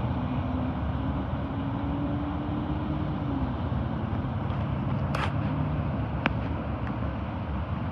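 Freight train passing with a steady rumble, a low engine hum fading out about three and a half seconds in and a lower hum after it. Two short clicks come near the end.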